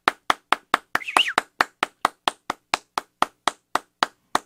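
One person clapping steadily, about four claps a second and slowing slightly near the end, with a brief high-pitched whoop about a second in: a lone cheer.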